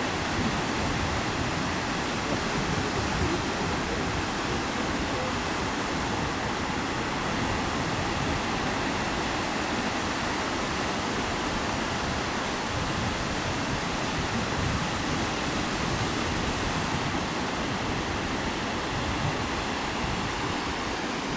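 Ocean surf breaking on a beach: a steady, even wash of noise with no single wave standing out.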